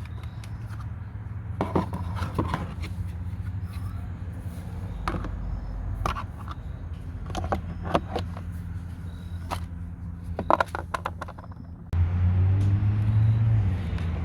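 A motor runs with a steady low hum while sharp clicks and knocks come and go. About 12 seconds in, the hum suddenly gets louder.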